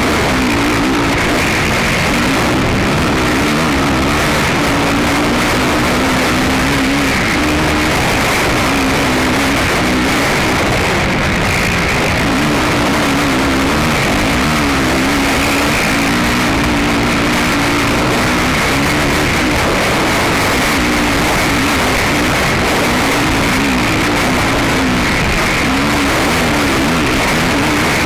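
Racing ATV (quad) engine revving up and down as it is ridden hard, heard from a camera mounted on the quad, with heavy wind noise over the microphone.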